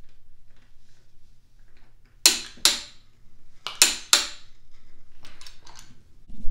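Click-type torque wrench giving two quick double clicks about a second and a half apart, the signal that the camshaft sprocket bolt has reached its set torque of 92 to 108 foot-pounds.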